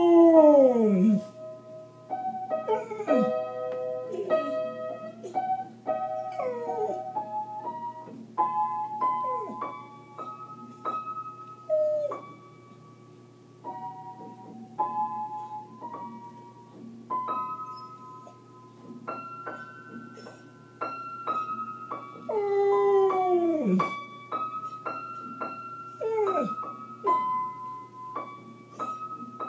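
A Samoyed howling along to a piano melody: long howls that slide down in pitch, repeated several times through the tune. The loudest howls come at the very start and again about 22 seconds in, with the piano notes going on between them.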